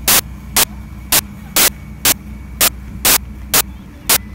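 Sharp clicks repeating evenly about twice a second, the loudest thing, over a steady low hum.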